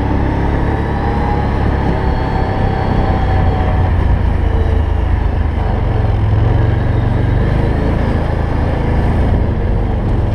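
ATV (quad) engine running steadily while the quad rides along at an even speed, a continuous low rumble.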